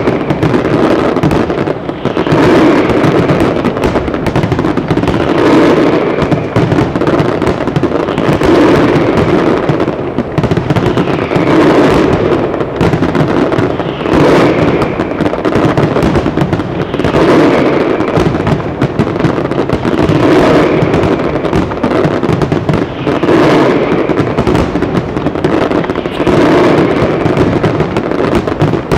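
A dense, continuous barrage of Ricasa aerial firework shells bursting: overlapping bangs and crackle merge into one very loud, unbroken roar that swells in waves roughly every three seconds.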